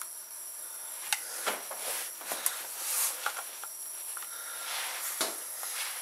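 Screwdriver driving the air-filter screws on a Stihl MS 290 chainsaw: several sharp clicks and light scrapes of the tool against metal and plastic, over a steady high hiss.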